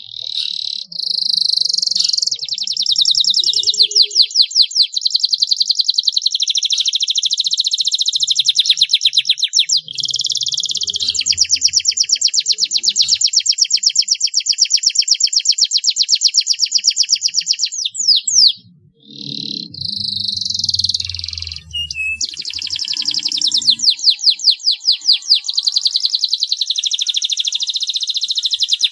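Domestic canary singing a long, loud song of rapid rolling trills. It breaks off briefly about two-thirds of the way through, then starts again.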